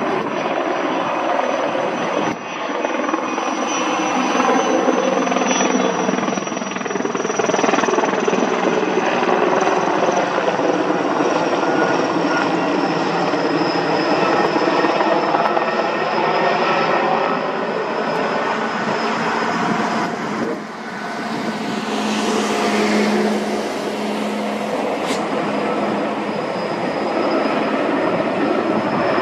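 Sikorsky S-64 Skycrane helicopter flying close by, its twin turboshaft engines and rotors running loud and steady, with a high turbine whine that slowly drifts lower and back up. The sound dips briefly twice, a few seconds in and about two-thirds through.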